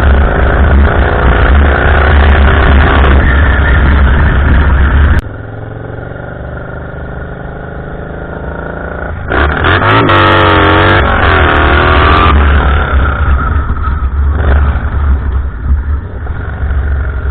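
A motor vehicle's engine and exhaust running loud. It drops off sharply about five seconds in, then is revved up and down briefly near the middle before running on steadily.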